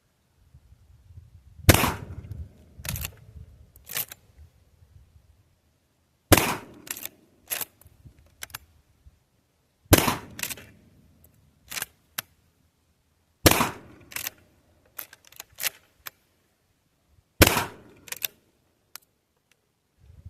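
Five shots from a GForce Arms LVR410 lever-action .410 shotgun, about four seconds apart. Between shots come sharper, quieter clicks from the lever being worked to eject the spent shell and chamber the next.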